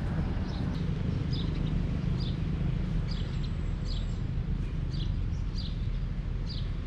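Small birds chirping, short high notes repeating about once a second, with a thin high whistle held for about a second near the middle. Under them runs a steady low rumble.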